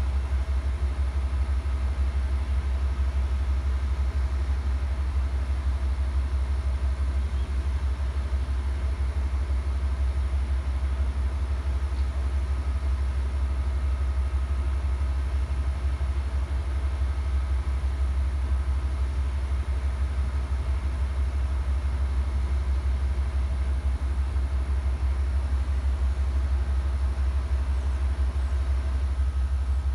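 Amtrak passenger train standing still with its diesel locomotives idling: a steady low rumble with a few faint steady tones and no change in level.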